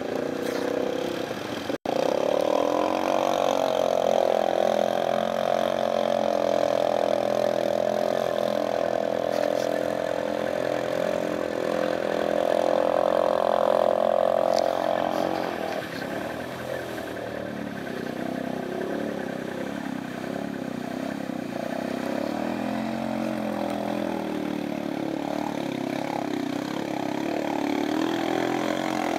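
ATV engines revving hard and steadily as the quads plough through deep muddy water. The engine note stays high for a long stretch, falls lower and becomes more uneven about sixteen seconds in, and picks up again near the end. The sound cuts out for an instant about two seconds in.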